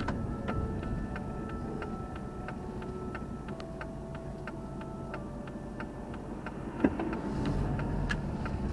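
A car's turn-signal indicator ticking about twice a second over the low hum of the idling engine while the car waits at a junction, with one sharper knock about seven seconds in.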